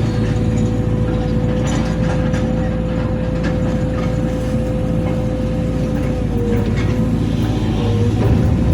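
Excavator's diesel engine running steadily under a held, high hydraulic whine that dips briefly twice near the end, with a few faint knocks and clanks from the machine working.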